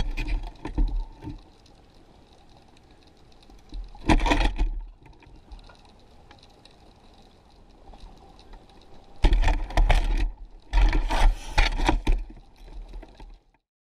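Water surging and bumping around a GoPro in its underwater housing on a baited remote underwater video rig: four rushing surges with a low rumble, each about a second long, between stretches of faint hiss. It stops suddenly near the end.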